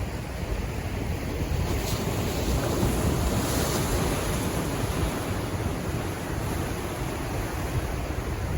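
Pacific Ocean waves washing in, a continuous hiss that swells into a louder surge about two seconds in and eases off after about five seconds, with wind rumbling on the microphone.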